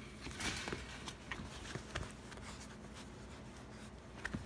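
Faint rustling with scattered light clicks and taps of movement, busiest in the first two seconds.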